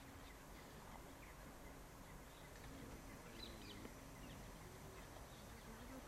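Quiet open-air ambience with a few faint, short, distant bird calls around the middle.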